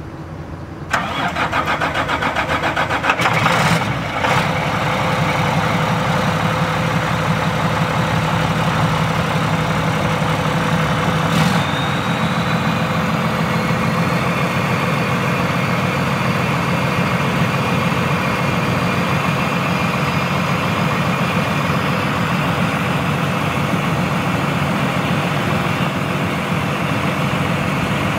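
Diesel engine of a 2005 International WorkStar 7500 dump truck cranking on the starter for about two seconds, catching with a brief rev, then settling into a steady idle. Partway through, a faint high whine joins and slowly rises in pitch as the hydraulics raise the dump body.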